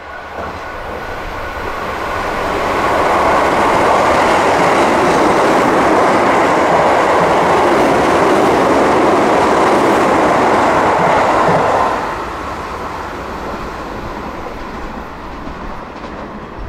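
Keio Line electric commuter train passing through a station at speed without stopping: it builds over the first few seconds, stays loud for about nine seconds as the cars go by, then drops off sharply about twelve seconds in.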